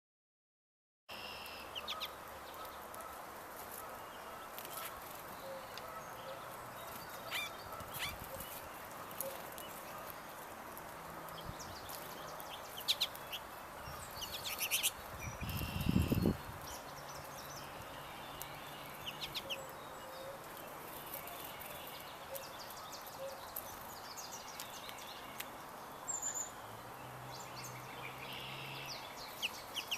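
Wild birds at a feeder giving scattered short calls and chirps over a steady background hiss, with one brief low rumble about halfway through.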